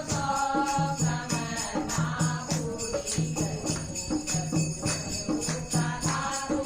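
Devotional music with a steady beat, jingling percussion and a singing voice carrying the melody.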